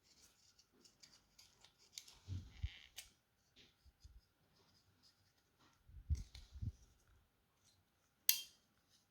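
Small plastic clicks, scrapes and light knocks from the parts of a Logitech M185 mouse being handled and pried during disassembly, with one sharp click near the end.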